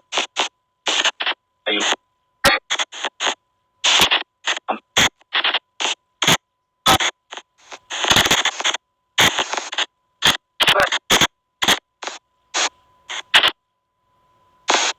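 SP White Noise Box spirit-box app playing chopped bursts of static and clipped sound fragments, several a second, with silent gaps between them, over a faint steady high tone.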